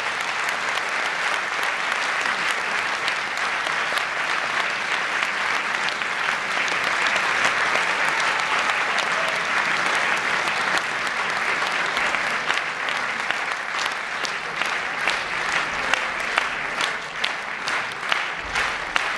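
Theatre audience applauding a curtain call, a steady dense ovation, with sharper single claps standing out near the end.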